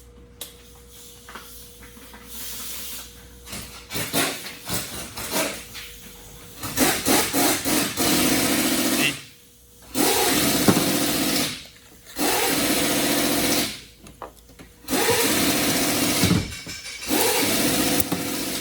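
A handheld power gun is run in five bursts of one to two seconds each, with short pauses between, while spark plugs are worked on a Dodge Charger's 3.6 V6. Lighter tool clicks and rattles come before the bursts.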